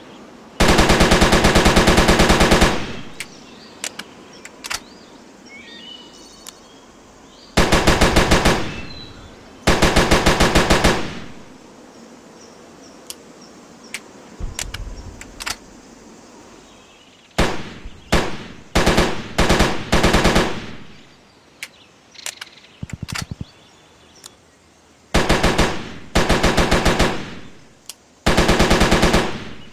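Browning Automatic Rifle (BAR) firing fully automatic in repeated bursts: a burst of about two seconds near the start, then a string of shorter bursts, with scattered single sharp cracks in the gaps.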